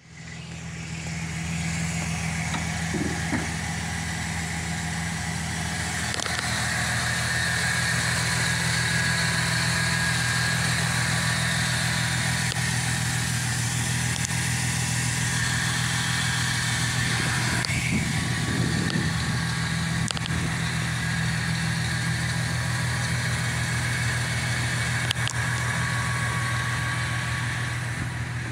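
Chevrolet Silverado 1500 pickup's gasoline engine idling steadily, with a jump-starter pack clamped to its battery.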